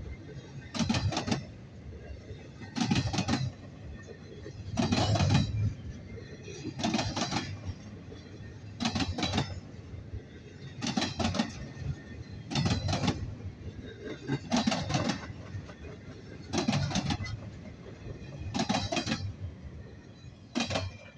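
A double-stack freight train of well cars rolls steadily past. Its wheels click-clack over a rail joint in a cluster of clicks about every two seconds, with a continuous rumble of wheels on rail between the clusters.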